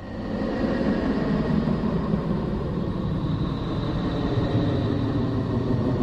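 Steady, dense rumbling drone presented as the sound of Neptune, fading up at the start. It is a space sonification: a probe's electromagnetic recordings turned into audio, since space carries no sound.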